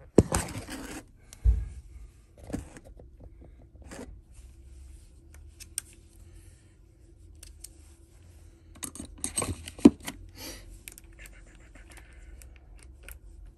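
Short bursts of scraping, clicking and clattering as tools and parts of an air handler are handled, with a low thump early on and a sharp knock about ten seconds in. A faint steady hum runs underneath.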